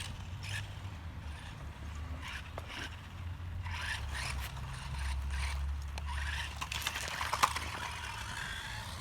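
Losi Mini B RC car on the move, heard from a camera riding on it: a steady low rumble with scraping and rattling from the ground, many small knocks and one sharp knock about seven seconds in.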